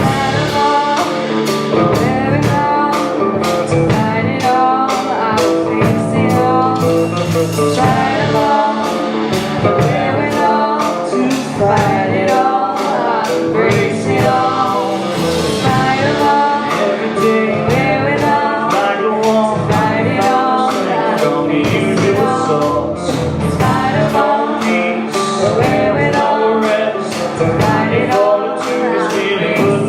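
Live band playing an instrumental break in a folk-rock song, with electric guitar and bass guitar over a steady beat.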